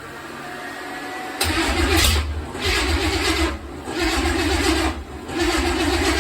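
Small-block V8 being cranked on the starter and trying to catch, sputtering and surging about once a second without running cleanly. It is struggling to start because of a large vacuum leak at the intake manifold, which had not sealed on the driver's-side bank.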